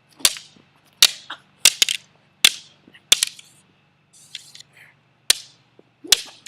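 A string of about nine sharp cracking hits, irregularly spaced, each with a short noisy tail: the blows of a staged sword fight.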